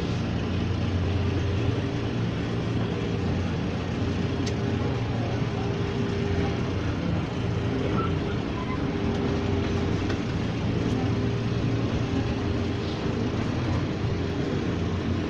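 Ex-JR 203 series commuter train car running on Philippine National Railways track: a steady rumble with a steady low hum.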